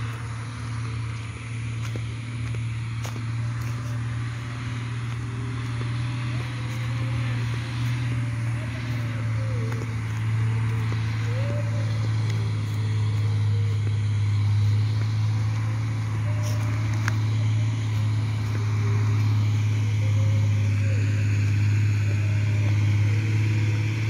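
A steady low engine drone, slowly growing louder, with a faint hiss above it.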